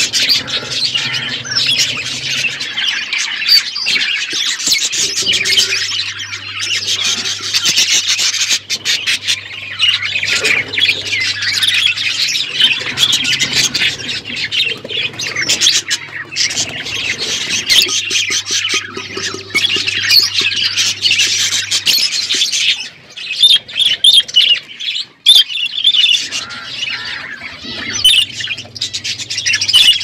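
A flock of budgerigars chattering continuously, a dense mix of warbles, chirps and sharp squawks.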